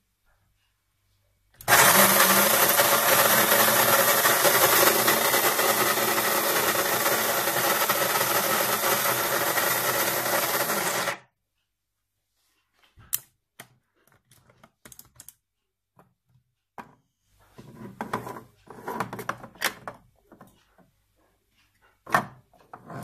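DeLonghi KG79 electric burr grinder running, grinding coffee beans: a loud, steady grinding noise that starts about two seconds in and cuts off abruptly some nine seconds later. Afterwards, scattered clicks and light plastic knocks as the grinder's removable grounds container is handled.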